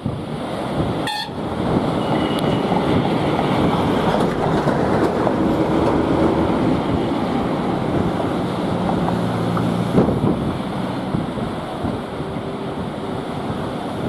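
Passenger train rolling slowly across a sea bridge under a 15 km/h speed limit: a steady rumble of coaches on the rails, mixed with heavy wind on the microphone and surf breaking on rocks.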